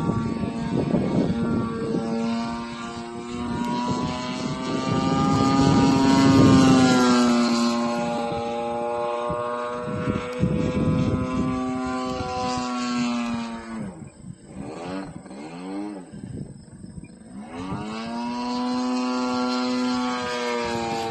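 Great Planes Pitts M12S radio-control aerobatic plane's TR 55cc gas engine running in flight, its pitch sliding up and down as the plane passes and the throttle changes. About two-thirds of the way through the engine grows faint with a quick warbling pitch, then comes back loud near the end.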